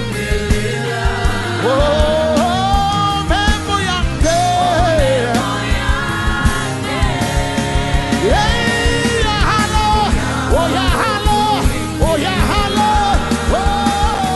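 Live gospel worship song: sung melody with vibrato over a full band, with steady bass and regular drum beats.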